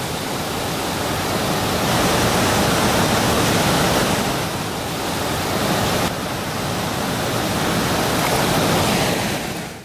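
Steady rush of a fast mountain stream and waterfall, fading out at the very end.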